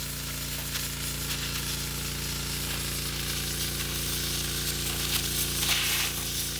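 Pressure washer running with its trigger held, a high-pressure jet from the red 0° nozzle hissing against a wooden board and pitting its surface, over the steady hum of the machine's engine. The hiss swells briefly near the end.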